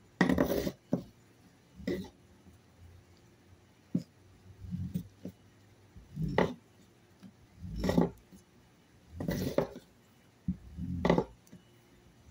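Fire roll being rolled hard under a wooden board across a plywood tabletop: a short rush of rubbing about every second and a half, about eight strokes in all, as the roll is heated by friction toward an ember.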